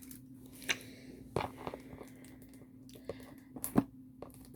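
Handling noise from a diamond painting kit being unpacked: a few sharp clicks and knocks with faint crinkling, the loudest near the end, over a steady low hum.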